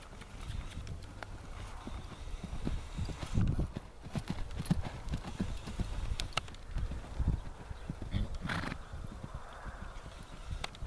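Hoofbeats of a horse loping on soft arena dirt: a run of dull, repeated thuds. A short noisy burst about eight seconds in stands out above them.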